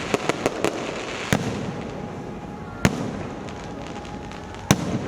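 Fireworks and firecrackers going off: a quick run of sharp cracks in the first second, then single loud bangs every one and a half to two seconds.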